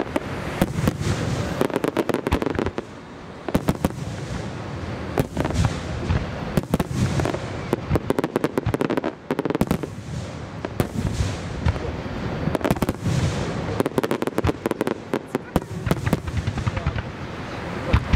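Aerial firework shells bursting in quick, irregular succession: many sharp bangs with crackling, several per second, with a low rumble between them.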